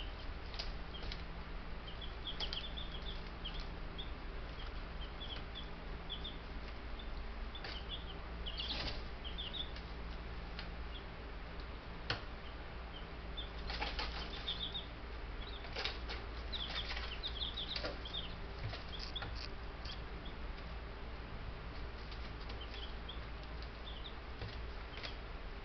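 Baby Buff Brahma chicks peeping in short high chirps, with brief bouts of wing fluttering and scratching in their bedding, densest near the middle. A steady low hum runs underneath.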